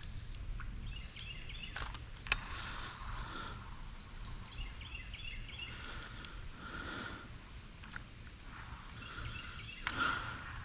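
Birds calling in short repeated chirping phrases over a low steady rumble, with a couple of sharp clicks about two seconds in.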